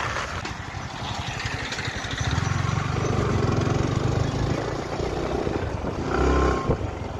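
Sport motorcycle engine running at low road speed as the bike slows, with wind noise on the microphone. The engine note grows louder from about two seconds in, and there is a short louder burst of engine sound near the end.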